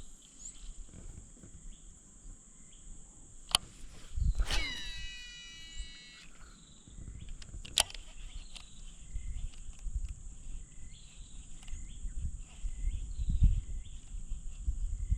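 Swamp ambience: a steady high insect drone with scattered short bird or frog chirps. Near the middle, a baitcasting reel whirs out on a cast with a whine that falls in pitch as the spool slows. Two sharp clicks and low handling thumps come and go.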